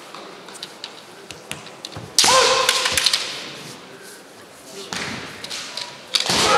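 Bamboo shinai clicking and tapping against each other as two kendo players engage, then a loud kiai shout held on one pitch about two seconds in, and another loud kiai near the end.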